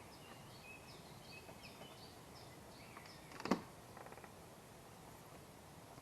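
A songbird singing a quick series of short, high, falling notes over the first half. Then a single sharp knock about three and a half seconds in, followed by a brief rattle.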